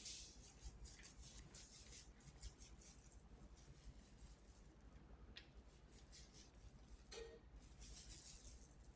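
Faint, quick scratching and rustling strokes, many per second, over a steady high hiss, with a slightly louder stretch near the end.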